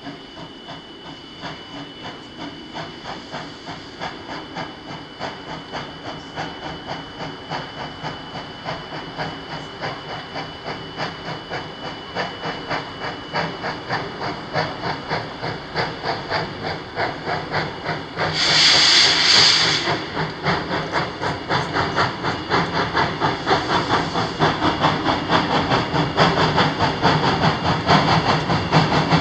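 Steam locomotive working as it approaches, its exhaust chuffing in an even rhythm that grows steadily louder. About two-thirds of the way through, a loud burst of hissing steam lasts about a second and a half.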